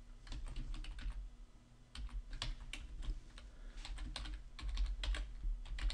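Typing on a computer keyboard: a run of irregular keystroke clicks, with a short pause about a second and a half in.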